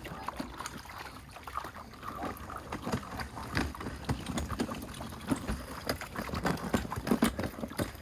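Water splashing and sloshing in a plastic tub as children scoop and pour it with small cups, with many short irregular knocks and clatters.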